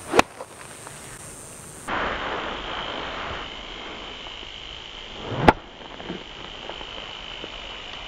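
Two golf swings: each time the club swishes through and strikes the ball off the turf with a single sharp crack, once right at the start and again about five and a half seconds in.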